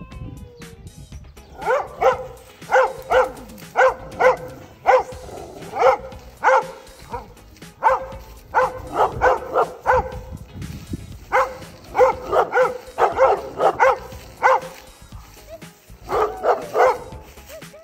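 A dog barking in quick runs of short, same-pitched barks, two to four at a time with brief pauses, over background music.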